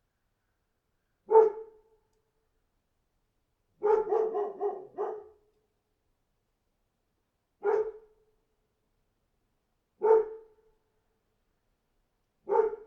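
A dog barking: single barks a few seconds apart, with a quick run of about five barks about four seconds in, and dead silence between them.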